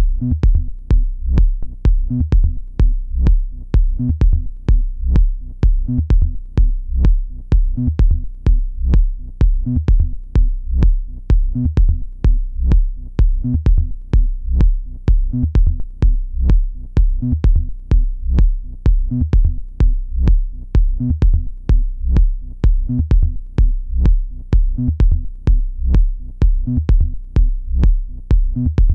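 Electronic dance track: a steady kick-drum beat about two strokes a second over deep bass.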